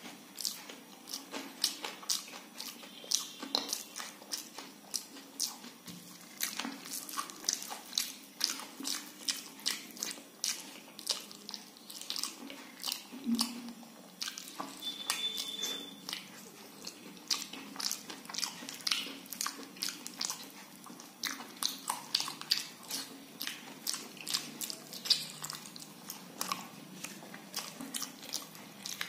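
Close-up eating sounds: wet mouth smacks and chewing clicks, several a second, as soft khichdi and fried vegetables are eaten by hand.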